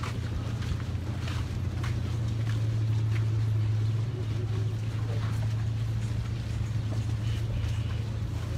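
A van's engine running with a steady low hum as it moves at walking pace, with a few faint clicks over it.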